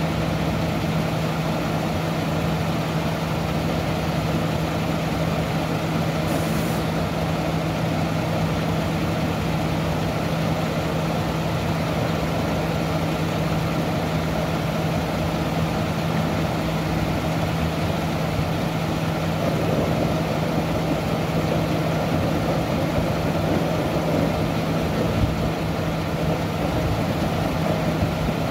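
A large diesel engine running steadily at idle, a constant even hum with no revving. There is a short hiss about six seconds in.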